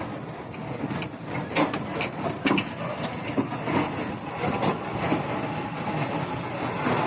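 Hyundai 210 excavator running under a steady machine noise, with irregular sharp knocks now and then, most of them in the first five seconds.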